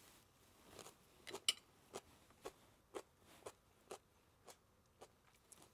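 Faint chewing of a lacto-fermented hot pepper: soft, short crunches about twice a second.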